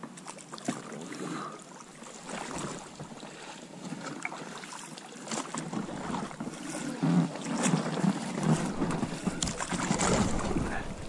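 Water splashing and rippling around a small boat being paddled on a shallow river. Irregular splashes and small knocks, growing louder after about six seconds, with a low rumble joining in near the end.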